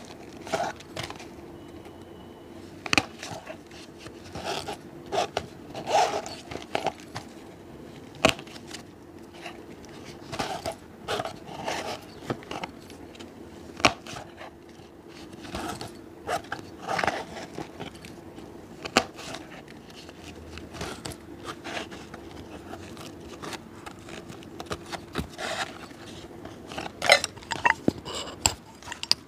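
A street cobbler's hand tools scraping, tapping and clicking against a shoe in short, irregular strokes, over a faint steady hum.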